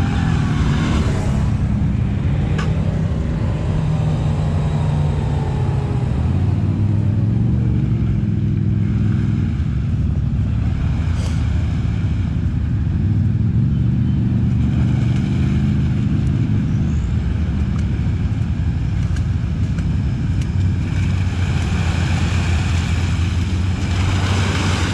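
Quad bike (ATV) engines running, the engine note rising and falling as the throttle is opened and eased off.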